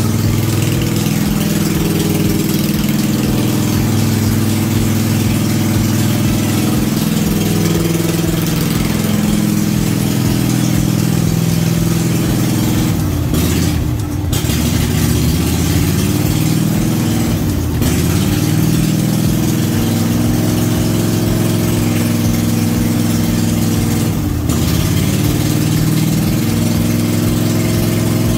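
Cub Cadet RZT-50 zero-turn mower's engine running steadily, its pitch dipping briefly about halfway through and again near the end.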